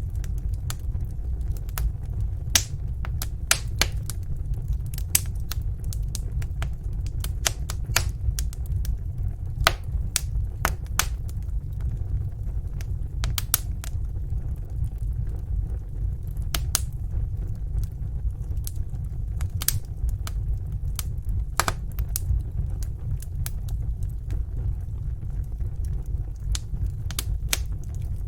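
Wood fire crackling in a fireplace: irregular sharp pops and snaps, a few to several a second, over a steady low rumble of the flames.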